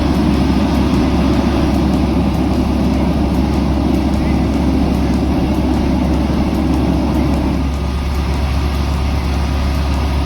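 Fire truck engine running steadily, a low, even rumble with no siren. Part of its lower sound eases off a little after seven seconds in.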